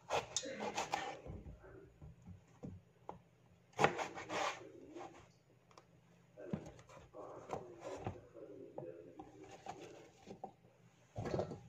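Knife slicing through an eggplant and knocking down onto a cutting board in irregular bursts of scraping cuts, the sharpest knock about four seconds in.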